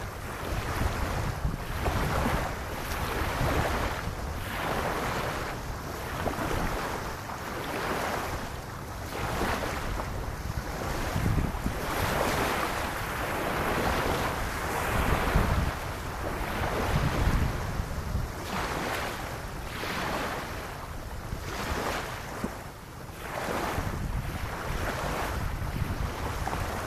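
Small lagoon waves lapping on a sandy beach, washing in and out every second or two. Wind buffets the microphone with a low rumble underneath.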